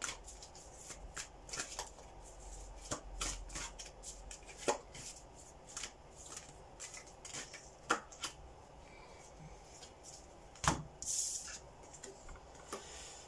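A deck of playing cards being shuffled by hand: irregular soft riffling clicks and card-on-card flicks. Near the end there is a sharper snap and a brief sliding rustle as a card is pulled from the deck.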